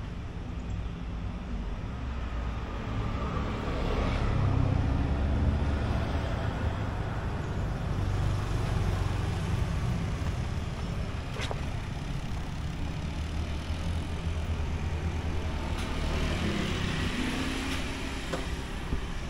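Street traffic: a motor vehicle's engine running with a steady low hum that grows louder about four seconds in, with a couple of brief sharp clicks partway through.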